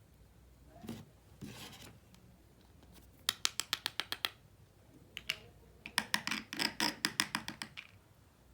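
Small plastic toy kitchen pieces being handled: a knock and a short scrape, then two runs of rapid sharp clicking, about ten clicks a second.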